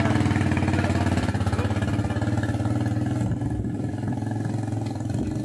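Small motorcycle engine running, then pulling away under the two riders and growing fainter as it rides off.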